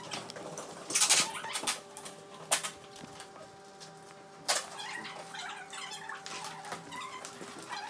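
Cardboard box being handled and assembled: rustling and scraping, with a few short, sharp ripping noises, the loudest about a second in and again near the middle.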